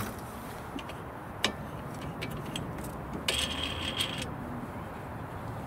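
Hollywood Racks Destination E steel hitch bike rack being handled at its frame: a few light metal clicks, then a scraping rattle of about a second a little past halfway.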